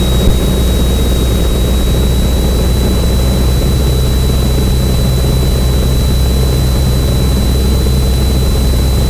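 Cessna 172N's four-cylinder Lycoming O-320 engine and propeller droning steadily, heard from inside the cabin in flight, with a thin steady high-pitched whine over it.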